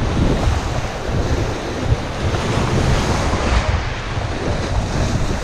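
Small waves breaking and washing over shore rocks, with wind buffeting the microphone in a steady low rumble.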